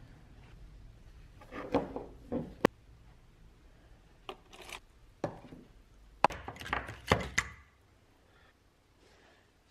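Rusty, dismantled bench vise parts set down one after another into a plastic tray: three short bursts of knocks and clatter, with single sharp clacks among them.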